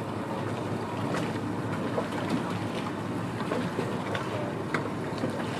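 Steady wind and water noise around a racing yacht on the water, with wind buffeting the microphone and occasional light knocks and clicks.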